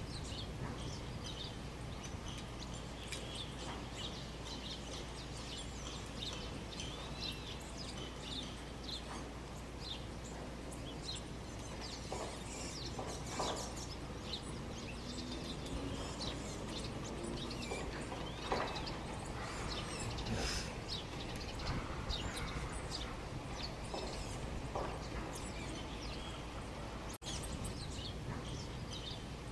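Small birds chirping and calling over and over in the trees, with a few louder calls now and then, over a steady low outdoor rumble. The sound drops out for an instant near the end.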